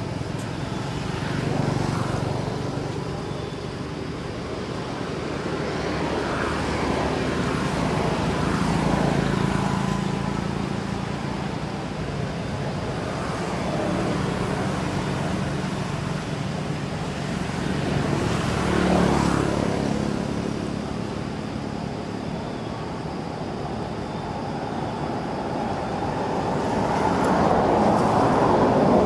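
Road traffic going by: engines of several passing vehicles, each swelling and fading over a few seconds, with a low steady hum underneath.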